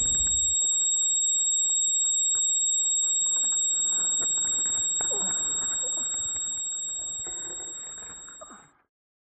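A steady high-pitched ringing tone, the film's ear-ringing effect for a soldier deafened by a nearby shell blast, over faint muffled sounds. It fades away and stops shortly before the end.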